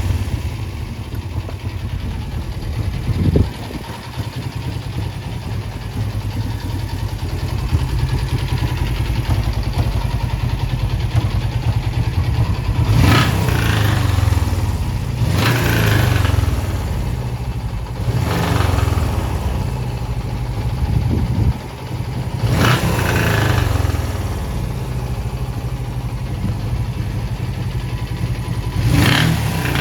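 Suzuki GSX400E's 399 cc engine idling steadily, with the throttle blipped about five times. The seller reports an abnormal noise from the bottom end of this engine.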